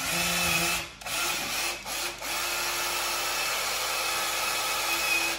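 Small cordless drill-driver with a thin bit boring a hole into the end of a tree branch. The motor runs steadily, with a few short stops in the first two seconds.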